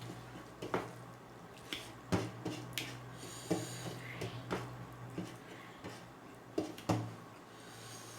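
Mouth-close eating sounds from a meal of millet dhido and soup: irregular clicks and light knocks of tableware with wet chewing and squishing between them.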